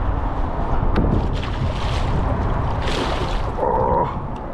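Water splashing against the side of a kayak as a hooked pike thrashes at the surface by the landing net, in a few short splashes, over a low rumble of wind on the microphone.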